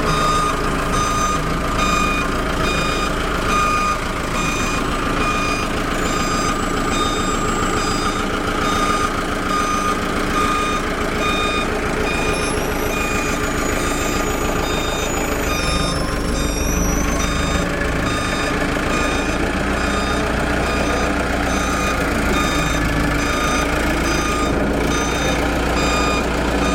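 A truck's reversing alarm beeping regularly, about once a second, over the low, steady running of the truck's engine as it backs up.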